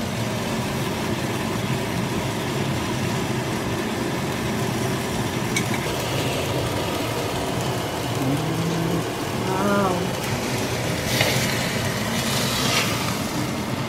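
Chicken breasts sizzling steadily in a hot cast iron skillet, with a couple of louder hissing scrapes near the end as the pieces are lifted out with metal tongs.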